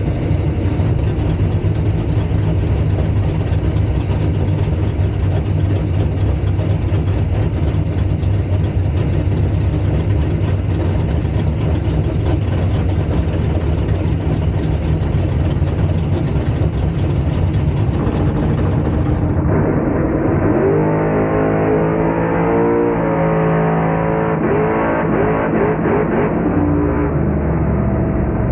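Race car engine running at a steady idle. About two-thirds of the way through the sound turns muffled, and an engine is revved up and down several times.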